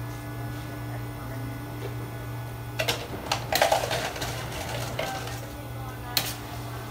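Ice dropping from a soda fountain's chute into a plastic cup: a burst of rattling clatter about three seconds in, with a single click near the end, over a steady low machine hum.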